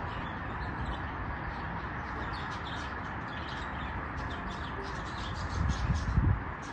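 Budgerigars chirping and chattering in an aviary over a steady hiss, with low rumbling bumps near the end.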